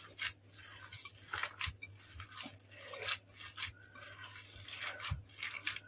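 Hands kneading a raw minced-chicken köfte mixture with chopped onion, parsley and breadcrumbs in a glass bowl: faint, irregular squishing with light clicks.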